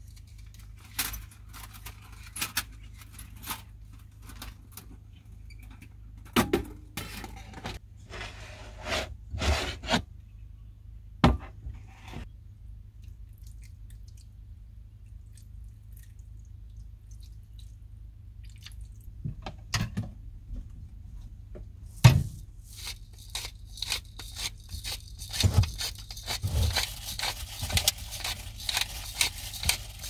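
Scattered clicks, knocks and scrapes of objects being handled, over a steady low hum. Near the end a hiss with rapid small ticks comes in.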